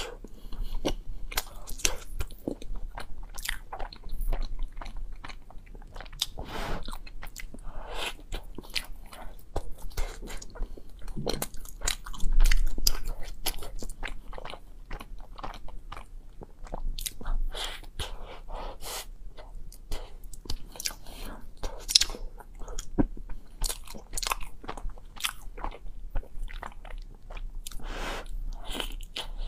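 Close-miked biting and chewing of chocolate-filled bread: irregular wet mouth clicks and soft crunches, with a louder bump about twelve seconds in.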